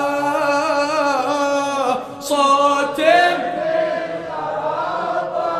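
A man chanting a Shia mourning elegy in Arabic, drawing out the sung line in long, slowly bending notes, with a short break about two seconds in.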